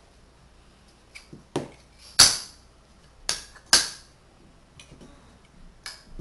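Tegu magnetic hardwood blocks clicking together and knocking on the table as they are picked up and placed: a series of about seven sharp wooden clicks, the loudest two about two and three and a half seconds in.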